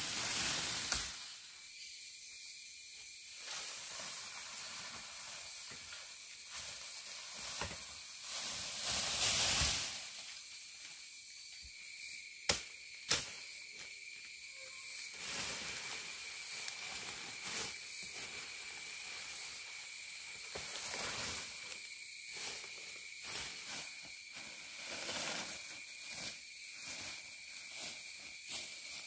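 Bamboo-forest ambience: a steady high insect hiss, joined about twelve seconds in by a thin continuous high tone, over irregular rustling of dry leaf litter as the ground is worked by hand. A louder rustle comes about nine seconds in, and two sharp knocks about half a second apart a few seconds later.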